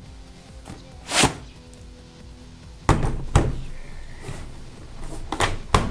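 A few sharp clicks and knocks from a tool case being unlatched and opened: a rivet nut set handled for the first time. Faint background music plays underneath.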